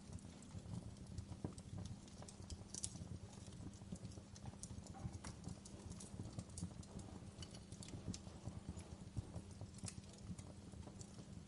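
Campfire burning: wood crackling with irregular sharp pops and snaps over a low, steady rumble of the flames.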